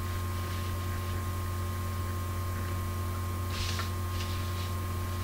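Steady low electrical hum with room tone, and a faint brief rustle about three and a half seconds in.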